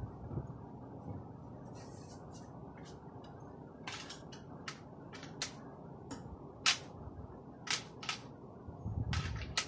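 Sharp plastic clicks from a handheld LEGO-brick toy gun being worked, about ten of them at uneven intervals starting about four seconds in, over a low rumble of handling.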